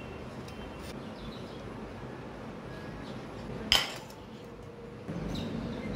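A single sharp clink of a metal serving spoon against a metal plate, about two-thirds of the way in, over faint background noise.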